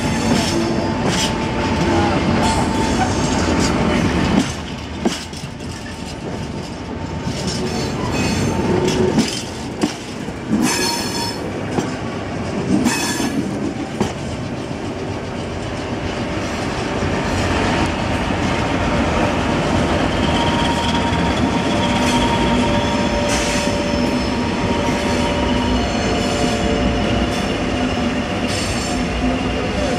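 CP Class 1400 diesel locomotive running past with a flat wagon: a steady engine note under the sound of the wheels, which click sharply over rail joints several times in the first half and squeal thinly on the rails.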